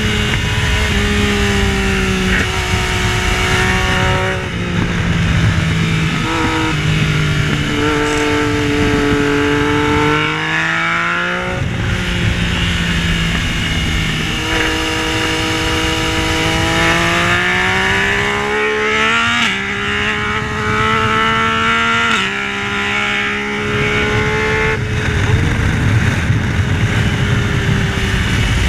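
Yamaha Tracer 900's inline three-cylinder engine under hard acceleration on track, its pitch climbing through each gear and dropping in steps at the upshifts, with a sharp drop about ten seconds in as it slows, then pulling up through the gears again. Wind noise rushes underneath throughout.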